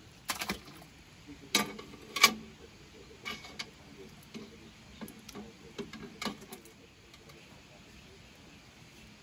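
Metal utensils clinking and knocking: a metal ladle scraping and tapping as maize is scooped into a large metal pot, then a metal bowl set down inside the pot. A string of sharp clinks, the loudest about two seconds in, stopping after about six and a half seconds.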